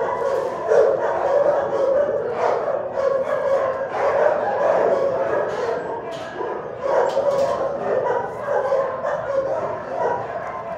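Many kennel dogs barking and yipping at once, with voices overlapping in a continuous din and no break.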